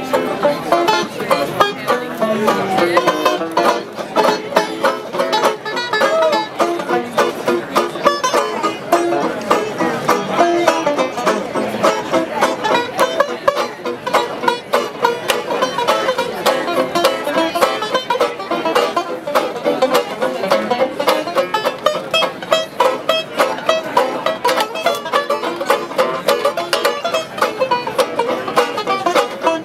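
Banjo music: a continuous run of quick picked notes in a bluegrass-style tune.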